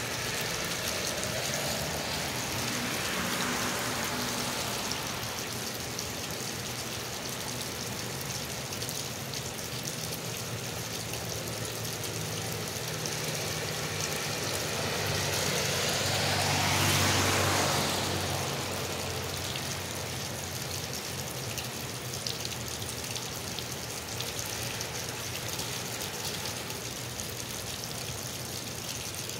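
Steady rain with water gushing from a drain pipe onto wet pavement. A car passes on the wet road about halfway through, its tyre hiss and engine swelling and fading; a fainter one passes a few seconds in.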